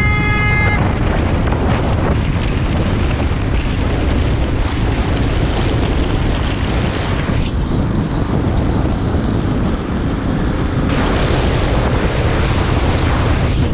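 Wind rushing over a helmet-mounted camera microphone on a moving motorcycle, with engine and road noise under it. A brief high tone sounds right at the start, and the wind hiss eases for a few seconds in the middle.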